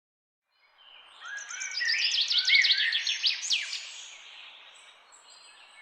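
Birds chirping: a rush of quick, high chirps and sweeping notes that swells and then fades, over a faint hiss of outdoor background, cutting off abruptly at the end.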